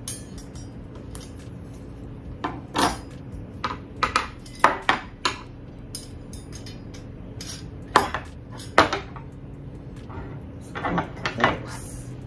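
Black metal wire book-stand pieces clinking and clanking together as they are fitted by hand, a dozen or so irregular sharp knocks with the loudest a little after the middle. A steady low hum runs underneath.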